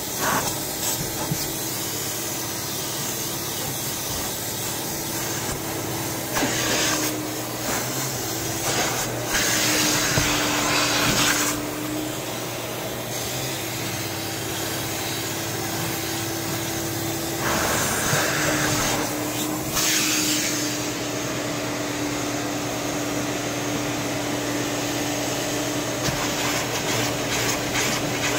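Upholstery extractor's vacuum motor running steadily with a low hum, as its hand wand is worked over a cloth car seat. Three louder hissing rushes of one to three seconds each, about a quarter, a third and two thirds of the way through, as the wand sprays and sucks water through the fabric.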